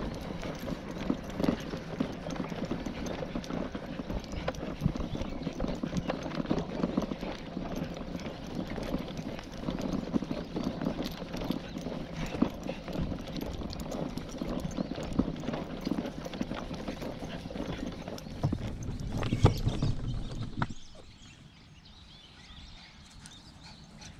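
Baby stroller wheels rolling over asphalt, a steady rumble with a constant clatter of small rattles from the stroller frame. The rolling stops about 20 seconds in.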